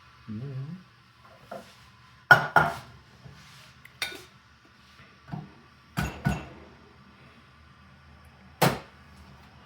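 Sharp metallic knocks and clinks of espresso tools and a portafilter being handled, about six hard taps, some in quick pairs, spread a second or two apart.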